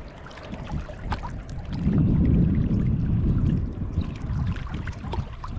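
Wind buffeting the microphone, a rough low rumble that swells into a stronger gust about two seconds in and eases off a couple of seconds later, with light scattered clicks and taps.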